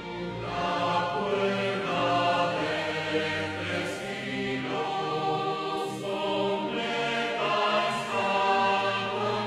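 A choir singing a slow religious hymn, a Jehovah's Witnesses song, in long held notes that change about once a second.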